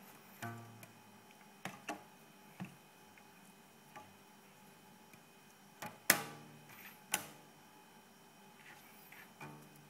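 Rubber bands stretched between wooden drawer knobs being plucked by a cat's paw: a string of twangy plucks and snaps, some ringing on as a short low hum. The two sharpest snaps come a little past the middle, about a second apart.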